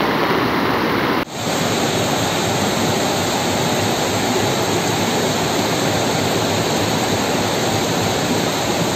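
Floodwater rushing in torrents, a loud steady rush of water noise. About a second in it drops out for a moment, then carries on as a similar steady rush of water.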